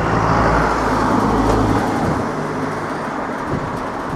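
Steady rumble of passing vehicle noise with a low engine hum that stops about two seconds in.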